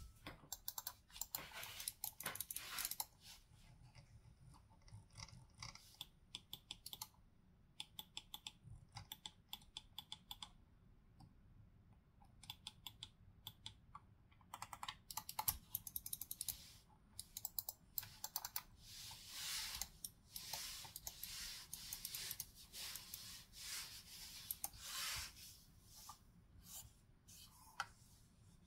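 Razer Basilisk X Hyperspeed wireless gaming mouse clicking, singly and in quick runs of clicks. In the second half there are stretches of rubbing as the mouse slides over a cloth desk mat.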